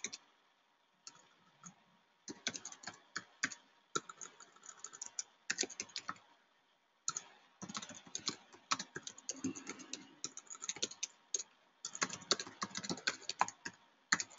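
Typing on a computer keyboard: quick runs of key clicks in irregular bursts, broken by short pauses, one of about a second just before the middle.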